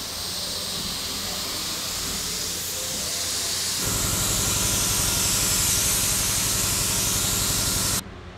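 Gravity-feed paint spray gun hissing steadily as it sprays paint onto a boat hull. A steady low motor hum joins about four seconds in, and both cut off suddenly near the end.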